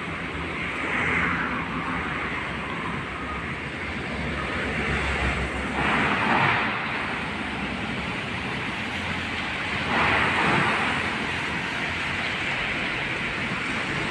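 Road traffic going past on a wet street: a steady rumble with tyre hiss, swelling as a vehicle passes about a second in, again around six seconds in, and again around ten seconds in.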